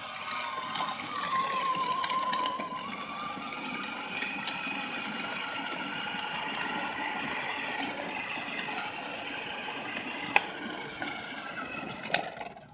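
Battery-powered ride-on toy quad's electric motor and gearbox whining steadily as it drives, its plastic wheels rumbling on asphalt. There is a single sharp click about ten seconds in, and the whine drops away just before the end.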